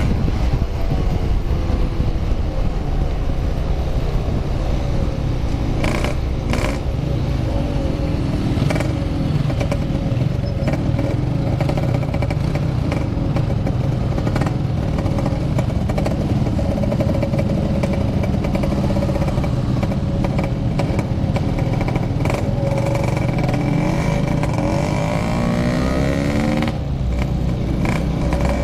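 Motorcycle engine running hard while riding at speed, holding a steady high note through most of it, with a couple of brief breaks about six seconds in and revs climbing again through the gears near the end. Road and wind noise run underneath.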